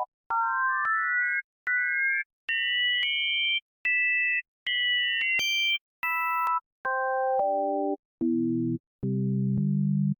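Surge software synthesizer playing short runs of plain electronic tones, two or three notes sounding together, climbing in pitch over the first few seconds and then stepping back down low, with a click at each note's start and stop and brief gaps between phrases.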